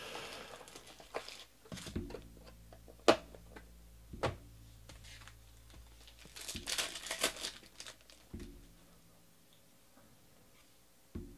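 A foil trading-card pack wrapper crinkling and being torn open in two spells, at the start and again about seven seconds in. A few sharp clicks of cards and boxes being handled come in between.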